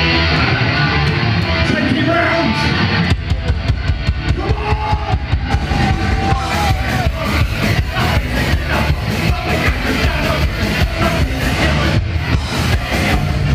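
Loud live rock band playing through a club PA, heard from within the crowd: electric guitar, bass and drums. About three seconds in, the drums break into a fast, steady beat.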